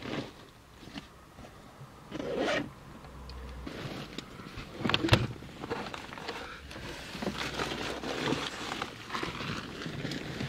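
Rustling and scraping, with scattered clicks and one sharp knock about five seconds in.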